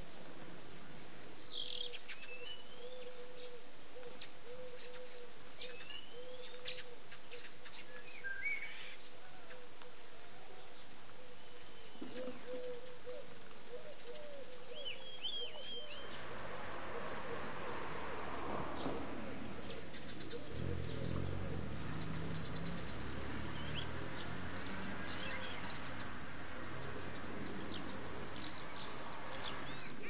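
Small birds chirping with short sliding calls, then from about halfway a European goldfinch bathing, splashing and flicking water in a shallow saucer of water, which carries on to near the end.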